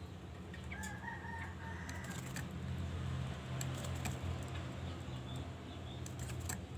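A faint, drawn-out bird call about a second in, lasting about a second and a half. Light clicks and a flutter of wings come from a caged songbird hopping about its perch, over a low steady hum.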